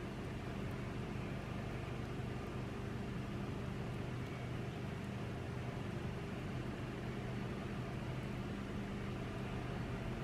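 A steady low mechanical hum with a constant hiss over it, holding unchanged throughout.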